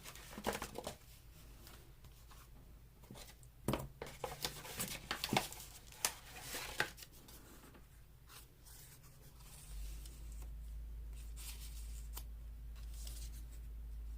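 Sheets of craft paper being handled and shuffled, with light rustles and taps, busiest in the middle. A steady low hum starts about two-thirds of the way through.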